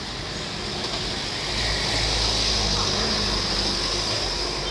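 A motor vehicle passing on the street: a low engine rumble swells about a second and a half in and fades near the end, over steady street background noise.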